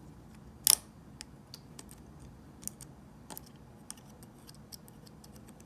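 Plastic parts of a T-Blade trimmer head clicking and tapping as they are handled and worked apart, with one louder, sharper click a little under a second in and scattered lighter clicks after it.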